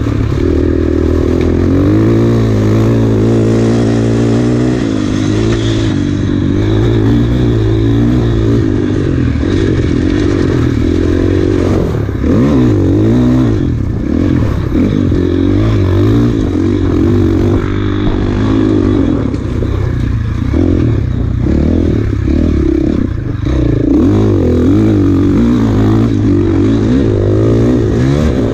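Enduro dirt bike engine revving up and down constantly as it is ridden hard over a rough trail, with clattering and knocking from the bike over rocks and bumps.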